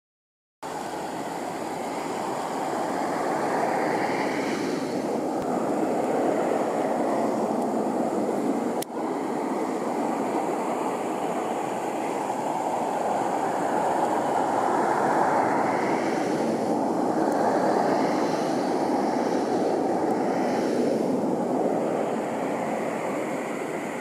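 A steady rushing noise that swells and fades every few seconds, with a single sharp click about nine seconds in.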